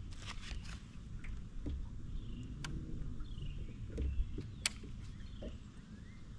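Open-air ambience on a lake: a steady low rumble of wind on the camera microphone, with a few short falling bird chirps and a couple of sharp clicks.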